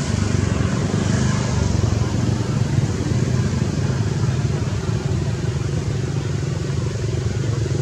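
Steady low drone of an engine running, with a constant hiss over it and no break or change in pitch.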